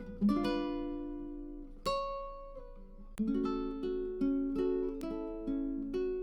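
Background music: plucked acoustic guitar or ukulele playing gentle chords, each note struck and then fading.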